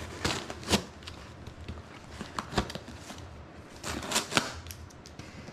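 A small knife slicing open a paper mailer, then the packaging rustling as it is handled and pulled open, with a few sharp clicks.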